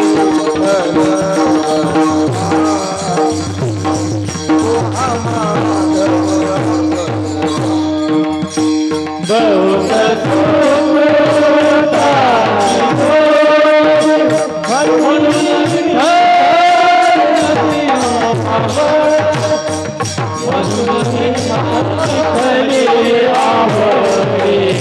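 Warkari bhajan music: a harmonium holds steady notes over a hand drum and small hand cymbals keeping an even beat. From about ten seconds in, a singer draws out long notes that slide and waver.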